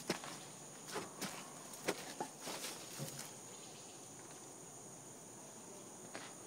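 Insects chirring steadily in a high band, with several scuffs and light knocks in the first three seconds, then only the chirring.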